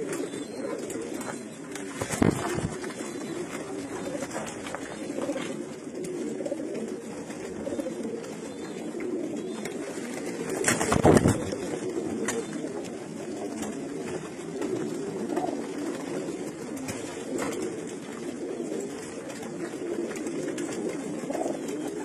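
A loft full of racing pigeons cooing, many low coos overlapping into a continuous murmur. A couple of brief sharp noises stand out, the loudest about halfway through.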